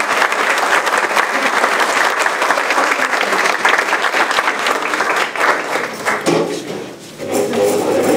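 Audience applauding, a dense patter of many hands clapping that dies away about six seconds in, with voices starting up near the end.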